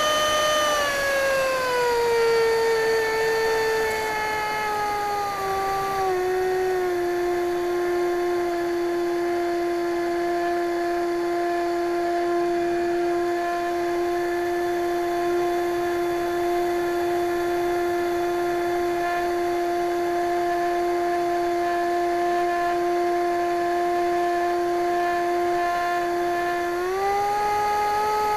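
Electric ducted fan of a foam RC F-16 model jet whining in flight, heard from its onboard cockpit camera. The pitch steps down over the first several seconds as the motor slows, holds steady for a long stretch, then rises near the end as it speeds up again.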